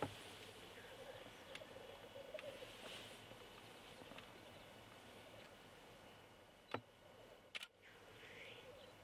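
Male black grouse faintly rookooing at a lek, a low rolling, bubbling warble that runs on without a break, with a couple of short hissing notes from the displaying cocks. Two sharp clicks come about seven seconds in.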